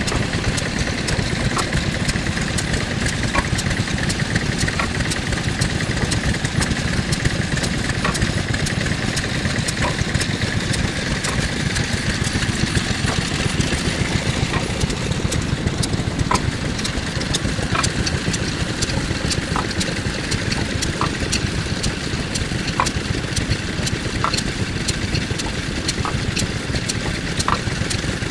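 Yanmar NS40-G single-cylinder diesel running steadily under load, driving a double wooden-pestle karausu through a worm reduction gear. A short knock sounds about every second and a half as the pestle mechanism works.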